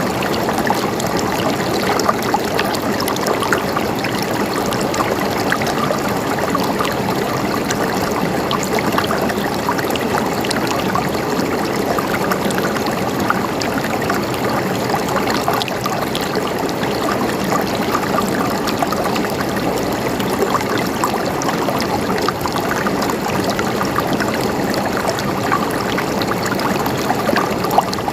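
River water flowing steadily over rocks, a continuous babbling rush with many small splashes and trickles.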